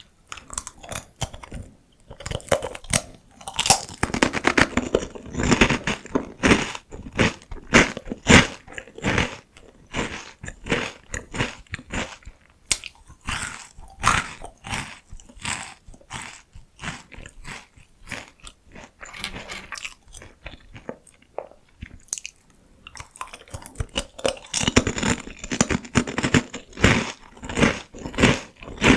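Close-miked crunching and chewing of crisp, thin fried potato sticks, a dense run of sharp crackling crunches with short pauses between mouthfuls.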